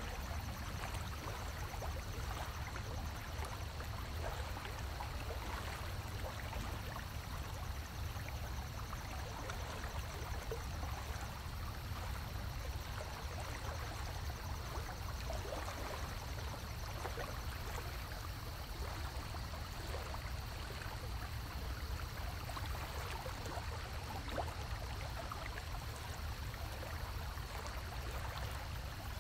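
Steady running and bubbling water in a turtle aquarium, with a low hum underneath and faint scattered ticks.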